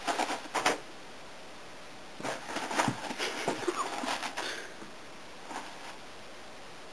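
Paper towel sheets rustling and crinkling as a calico kitten grabs, bites and kicks at a paper towel roll. A quick flurry comes right at the start, a longer run of crinkles follows from about two seconds in for two to three seconds, and a faint rustle comes near the end.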